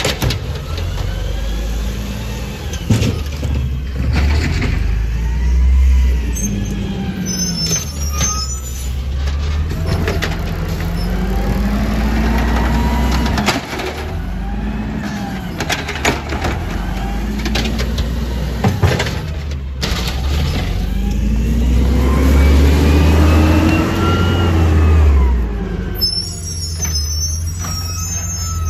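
Automated side-loader garbage truck working a bin: its diesel engine revs up and down again and again as the hydraulic arm lifts and empties the bin, with knocks and clanks of the bin and arm and hisses of air brakes.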